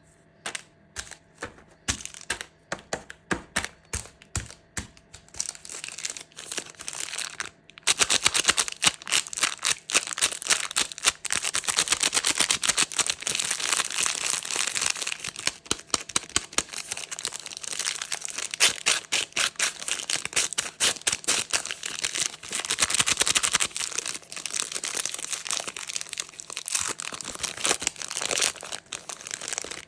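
Candy wrapper being handled and unwrapped close to the microphone. For the first eight seconds or so it gives separate sharp crackles. It then breaks into dense, continuous crinkling.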